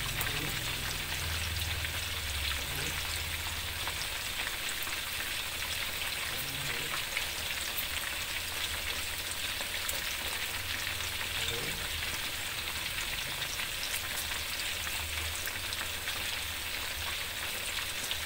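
Chicken pieces deep-frying in a wok of hot oil: a steady sizzle with fine, scattered popping crackles.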